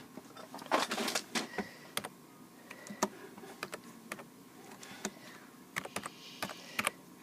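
Typing on an iPad: a string of irregular taps and clicks.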